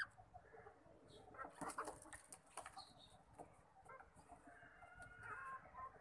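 Faint clucking of Aseel chickens, with a short call a little before the end and a few soft taps about two seconds in.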